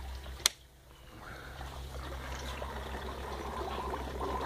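A single sharp click of the switch on a weatherproof outdoor mains socket being switched off, about half a second in. Water trickles steadily in the hydroponic grow table throughout.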